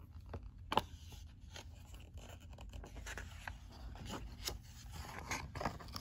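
Pages of a picture book being turned by hand: paper scraping and rustling, with several sharp clicks, the loudest a little under a second in.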